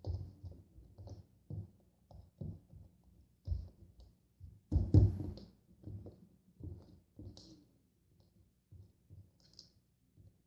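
Irregular soft knocks and clicks, a few a second, with one louder knock about five seconds in.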